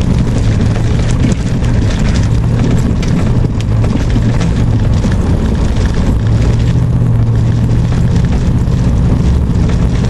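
Truck cab interior while driving a rutted, muddy dirt road: the engine drones steadily under a constant rough road noise, with many small rattles and knocks from the cab and the rough surface.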